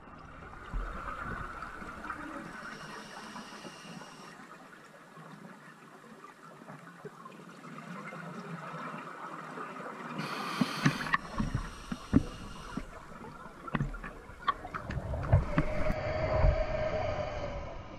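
Underwater sound of a scuba diver breathing through a regulator: hissing inhalations and gurgling, rumbling exhaled bubbles, with scattered clicks. One loud hiss comes about ten seconds in.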